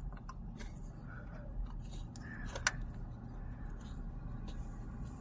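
Faint clicks and scrapes of an Allen key turning a cap bolt down into a plastic switch-panel trim strip, with one sharper click a little past halfway.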